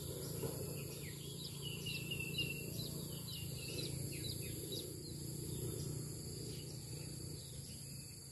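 Small birds chirping in quick, short falling notes, busiest in the first half, over a steady high insect drone and a low steady rumble.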